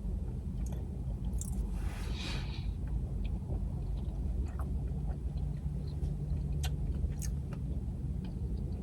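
A person chewing food with the mouth close to the microphone, with a few faint clicks and a short hiss about two seconds in. A steady low hum runs underneath.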